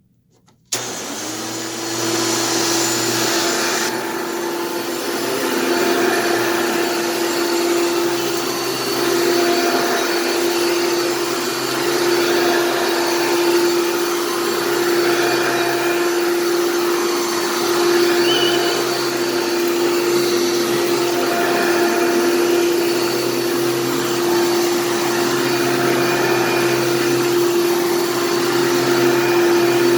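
Hoover PowerMax II upright vacuum cleaner with its 7.2 amp motor switched on a little under a second in, then running steadily with a constant motor whine over the rush of air.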